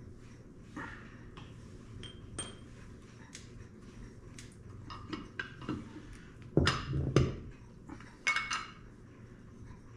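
Metal clinks and clanks as a disc brake caliper and its bolts are handled on a concrete floor: scattered light ticks, then a loud cluster of clanks about six and a half seconds in and another about a second and a half later.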